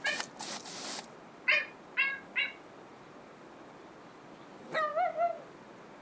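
Small dog yapping: three short high yaps in quick succession, then a longer yelp with a wavering pitch about five seconds in. In the first second, hissing bursts of water spray from a garden hose.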